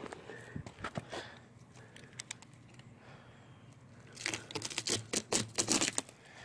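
Knife cutting the clear plastic stretch wrap off a rolled rubber truck-bed mat, the wrap tearing and crinkling in a loud crackly run from about four seconds in. A few sharp clicks come about a second in.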